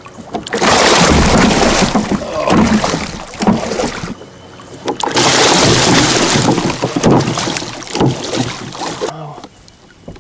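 Large hooked paddlefish thrashing and splashing at the water's surface beside a kayak as it is brought in. The splashing comes in two loud bouts with a short lull about four seconds in, and dies down near the end.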